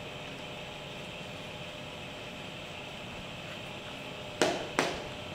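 Steady background hum, then two sharp clinks of a spoon against a metal dinner plate, about half a second apart, near the end.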